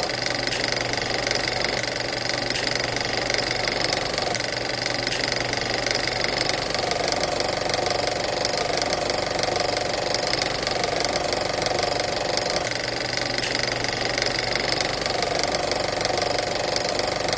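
Old film projector running: a fast, even mechanical clatter from its film-advance mechanism, steady throughout.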